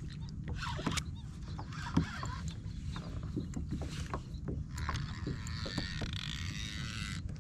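Clicks and knocks of fishing rod, reel and paddle being handled against a plastic kayak, over a steady low rumble. A hissing rush comes in about five seconds in and stops just before the end.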